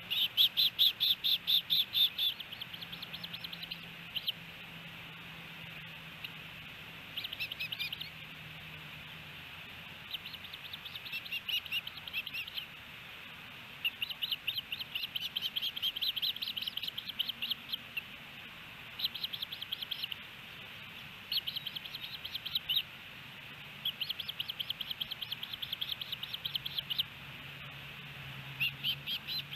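Ospreys chirping: repeated bouts of rapid, high chirps, each bout lasting one to three seconds, the loudest right at the start.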